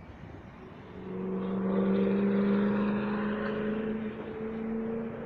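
Train air horn sounding a long chord of several steady notes together, starting about a second in and holding for about five seconds.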